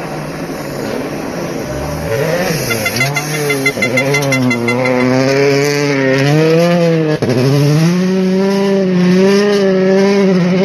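Rally car engines, 1.6-litre turbocharged four-cylinders, revving hard through snowy corners, the pitch rising and falling again and again with throttle and gear changes. About seven seconds in the sound breaks off sharply, then an engine holds a steadier high note.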